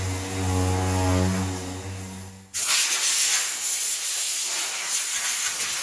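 A steady low machine hum that stops abruptly about two and a half seconds in, followed by loud, continuous hissing of compressed air from an air gun.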